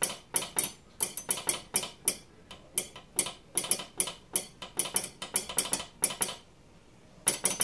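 Metal spoon tapped against a table knife as a makeshift telegraph key, clicking out railway telegraph code in quick groups of dots and dashes. The clicks stop for under a second about six and a half seconds in, then start again.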